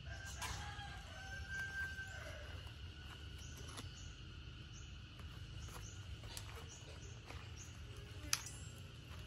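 A rooster crowing once near the start, one drawn-out call, over a steady high insect drone. A single sharp click comes near the end.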